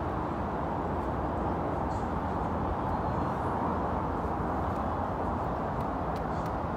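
Steady outdoor background rumble with no distinct event, even in level throughout.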